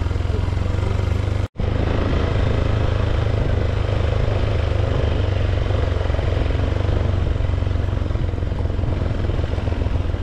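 Motorcycle being ridden, its engine running steadily under a steady rushing noise. The sound cuts out for an instant about one and a half seconds in.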